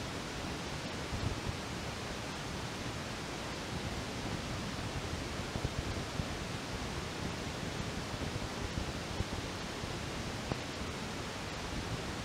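Steady even hiss with a few faint soft knocks scattered through it.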